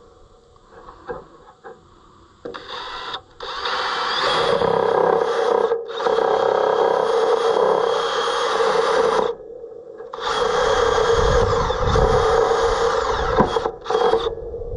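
Cordless drill boring a 5/16-inch hole through a hard wooden pitman arm. The drill starts about two and a half seconds in and runs in three spells of a few seconds each, with short pauses between, then a brief burst near the end.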